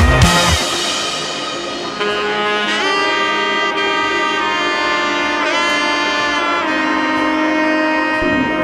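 Background music: a loud drum-heavy passage cuts off about half a second in, and a melody of long held notes follows, with a few notes bending in pitch.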